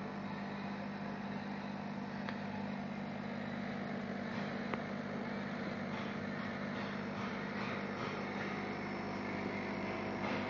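Steady hum of an Orbimatic 160C orbital welding machine running, with faint irregular crackling from about six seconds in.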